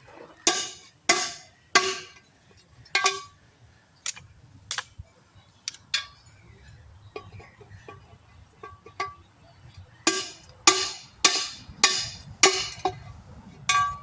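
Hammer blows on metal, each strike sharp and ringing, coming in quick runs of about one to two a second with a pause in the middle, as a stuck old wheel weight is knocked off a truck wheel rim.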